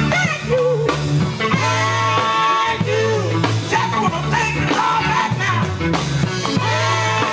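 A gospel vocal group singing live with electric guitar and bass accompaniment, the voices held with a wide vibrato over steady bass notes.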